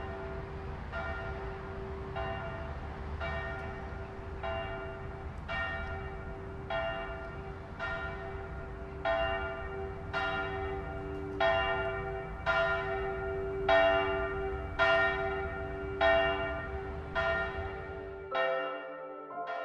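A church bell tolling steadily, about one stroke a second, each stroke ringing on, over a low rumble; the strokes grow louder toward the middle of the passage. Near the end the rumble cuts off and sustained musical tones come in.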